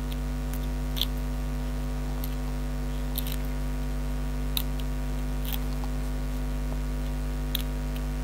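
Steady electrical mains hum, with a handful of light clicks and scratches from fingernails picking adhesive foam pads off their backing.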